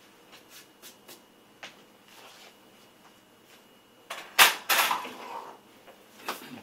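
Kitchen handling sounds: light clicks and knocks of things picked up and set down on a counter, then a loud knock about four and a half seconds in, followed by a second knock and a short clatter, and another knock near the end.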